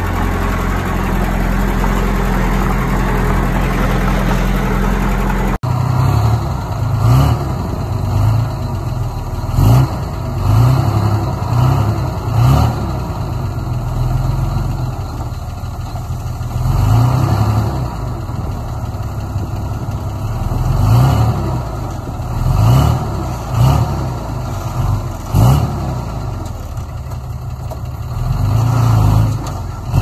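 Small Komatsu D20P bulldozer's diesel engine running steadily. About five seconds in the sound changes abruptly, and the engine then revs up and drops back again and again, every second or two, as the machine works.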